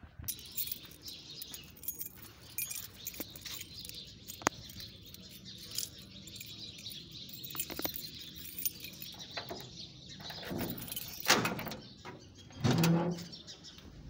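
Birds chirping, with scattered clicks and light footstep sounds from the camera being carried. Two louder bumps come near the end.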